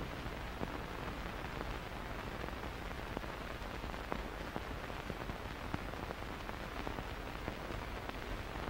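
Faint steady hiss with a few small scattered clicks and pops: the background noise of an old film soundtrack, with no other sound on it.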